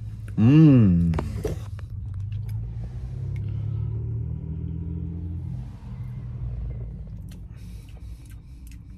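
A man's hummed "mmm" of approval about half a second in, then a low vehicle rumble heard from inside a car, swelling over a few seconds and fading, over a steady low hum.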